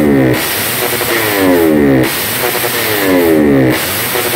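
Racing-prepared Honda GTR's single-cylinder four-stroke engine revved through an open racing exhaust. The throttle is blipped again and again, and the pitch falls away after each blip.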